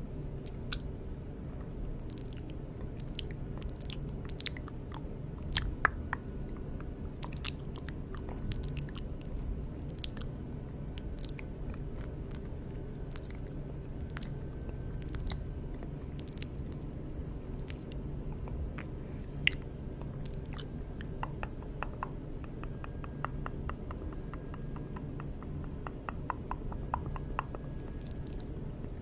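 Close-miked ASMR mouth sounds: wet clicks, pops and smacks, scattered irregularly, growing into a denser run of rapid clicking over the last third.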